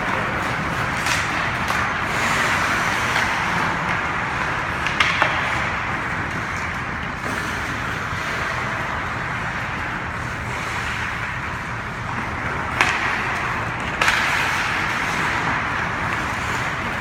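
Hockey game play: a steady rush of rink noise with sharp knocks of sticks, puck and boards, one about a second in, one at about five seconds and two close together near the end.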